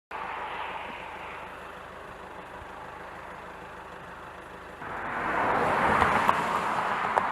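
A road vehicle passing on the road, its noise swelling from about five seconds in and then slowly easing off, over a steady background hiss.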